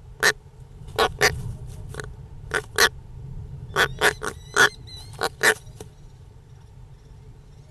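European roller giving a run of short calls, singly and in quick pairs, about a dozen in six seconds, then falling quiet. A steady low rumble runs beneath.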